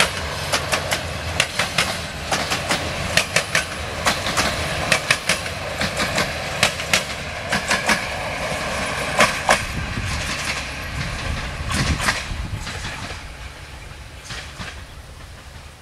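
Double-deck passenger coaches rolling past on jointed track, their wheels clacking over the rail joints in quick pairs over a steady rumble. The clacks thin out about twelve seconds in and the train's sound fades away.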